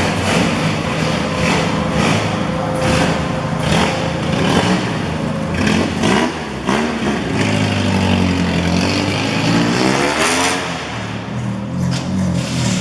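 Car engine accelerating, its pitch rising and falling and climbing steadily about two-thirds of the way in, over steady road noise with repeated short knocks.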